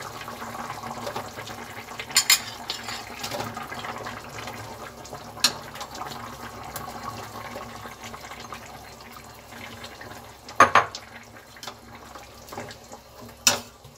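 Mango pieces simmering in water in a frying pan with a steady low hiss, as lumps of jaggery are tipped in and stirred with a steel ladle. Four sharp knocks against the pan, the loudest about three-quarters of the way through.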